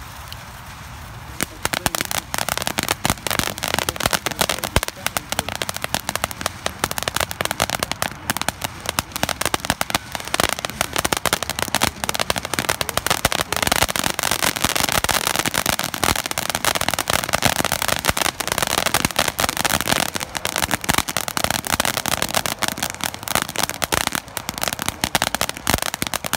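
Devil's Poison firework fountain burning. A hiss for the first second and a half or so, then dense, rapid crackling that breaks out and keeps going.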